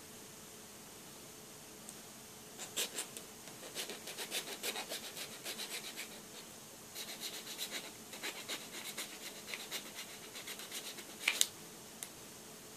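A multitool's metal blade scraping and filing a small black plastic air-vent part in quick, uneven strokes, with short pauses between runs. Near the end comes a sharper, louder click.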